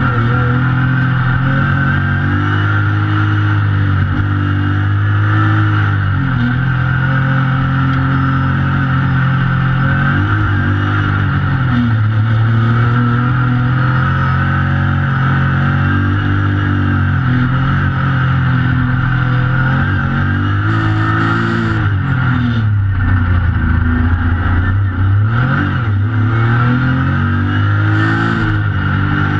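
A race-prepared car's engine, heard from inside the cabin during an autocross run. The revs rise and fall over and over as the driver accelerates, lifts and brakes through the course, dropping steeply several times, around six, eleven and twenty-three to twenty-five seconds in.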